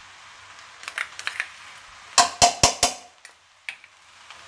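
Four quick ringing knocks of kitchenware, about a fifth of a second apart, with a few lighter clicks before and after, as the sauce bowl and spoon are handled over the pan. A faint steady hiss of the rice frying in the steel kadai runs underneath.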